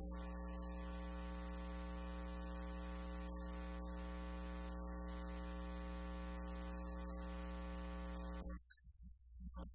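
Steady electrical hum and buzz through the sound system: a strong low hum with a row of overtones and hiss above, unchanging in pitch and level. It cuts off suddenly about eight and a half seconds in.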